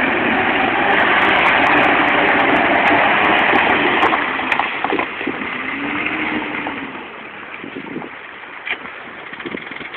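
Land Rover driving through a shallow river ford, its wheels churning and splashing water over the engine's running. About seven seconds in the splashing stops and the engine fades as the vehicle climbs out and pulls away.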